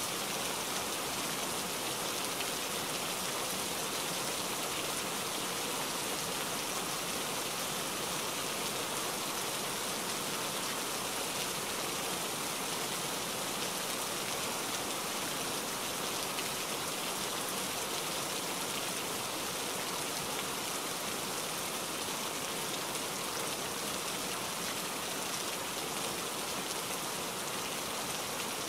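Steady rain: an even hiss that does not change.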